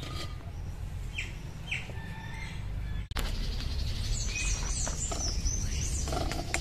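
Small birds chirping: two short falling chirps about a second in, then a run of quick high falling calls from about four to six seconds in, over a steady low background rumble.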